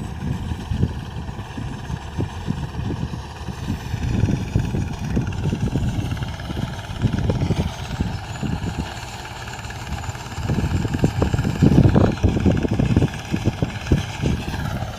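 Engine of a rice harvesting machine running steadily, a constant pitched hum, with irregular low rumbling gusts over it, strongest a little past the middle.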